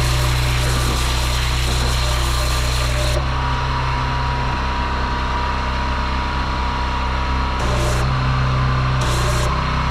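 Pressure washer running: its engine hums steadily while the lance sprays in a loud hissing jet for about three seconds. The spray then stops and the engine keeps running alone, with the jet coming back in two short bursts near the end.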